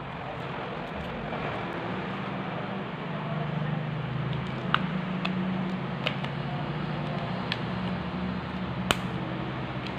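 A few sharp plastic clicks and taps from an Oppo A3s smartphone being handled and its back cover pressed into place by hand, the loudest near the end, over a steady low hum and hiss in the background.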